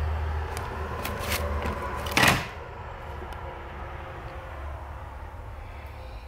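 A cabinet door being opened: a few light clicks and knocks, then a louder clatter about two seconds in. After that only a steady low rumble.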